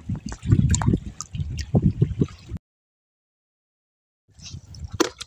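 Water sloshing and trickling as freshly cleaned fish are rinsed by hand. It cuts to dead silence for nearly two seconds about two and a half seconds in, then starts again.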